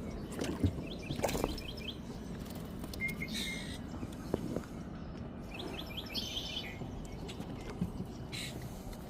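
Birds chirping outdoors in short quick runs of high chirps, several times over a steady low background, with a couple of faint knocks.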